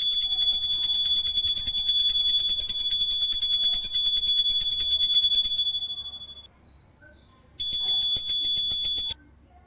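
A high-pitched metal bell rung rapidly and continuously, dying away about six seconds in; after a short pause it is rung again for about a second and a half and stops abruptly.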